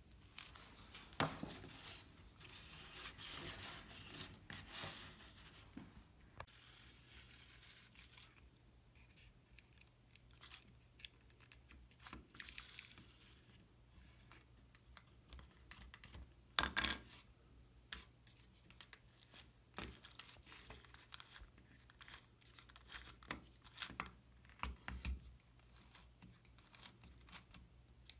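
Small wooden model V8 engine being handled, with faint rustling and scraping for the first several seconds, then scattered wooden clicks and knocks; the loudest knock comes about 17 seconds in.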